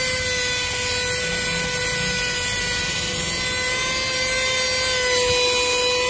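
Corded handheld car vacuum cleaner running steadily, sucking through its crevice nozzle: an even motor whine over a rush of air.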